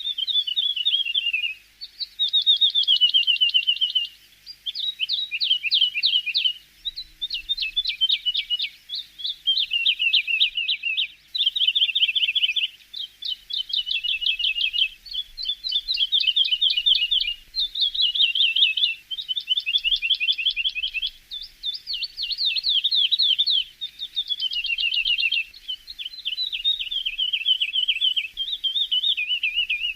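Javan bush lark (branjangan) singing: a run of fast, rattling, high trilled phrases, each about one and a half to two seconds long, with short breaks between them.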